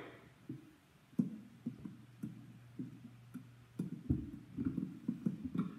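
Microphone handling noise: a string of soft, irregular knocks and rubs as a hand grips and moves a microphone on its stand, with a heavier low thump about four seconds in. A steady low hum runs underneath.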